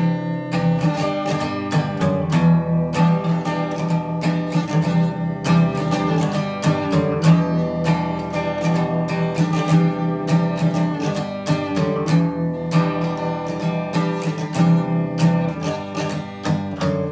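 Solo acoustic guitar strummed in a steady rhythm, chords ringing, with no singing.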